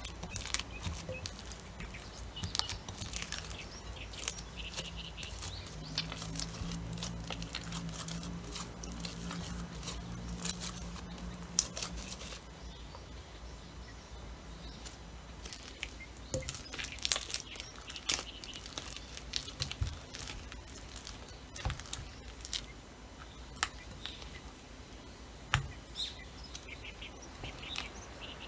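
Sticky rice-flour dough being stirred and worked in a bowl, with irregular clicks and squelches, and a faint steady hum for several seconds near the middle.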